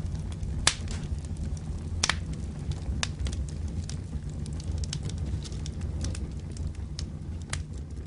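Fire burning: a steady low rumble with irregular sharp crackles, several a second, slowly fading.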